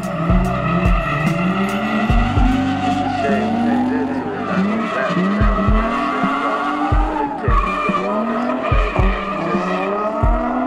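Nissan 350Z drift car's V6 engine revving up and down over and over while the tyres squeal in a sustained slide, with repeated low thumps.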